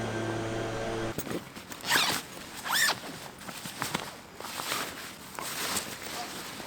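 A steady hum of several held pitches cuts off about a second in. Then come short rasping strokes, the loudest two about a second apart, and lighter rustling of gear being handled.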